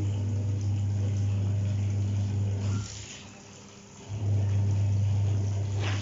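Washing machine's electric motor humming steadily. It stops for about a second near the middle and then starts up again. Near the end, water splashes as a wet cloth is wrung out by hand.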